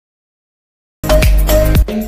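Dead silence, then background music with a heavy bass beat starts abruptly about a second in.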